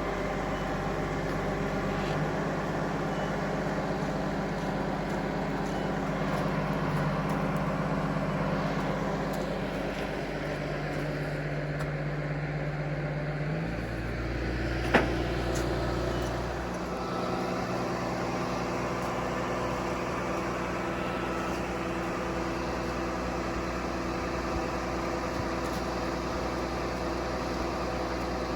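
Vehicle engine running steadily, its pitch changing abruptly twice about halfway through, with one sharp click between the changes.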